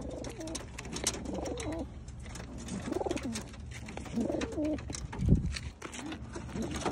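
Racing pigeons cooing repeatedly inside metal transport crates, with scattered small clicks. A loud low thump about five seconds in.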